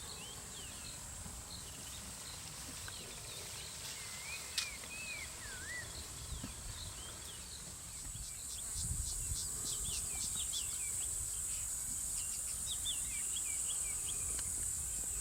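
Bushveld ambience: birds calling in many short chirps and whistles over a steady high-pitched insect drone that grows louder about halfway through, with one sharp click near the middle.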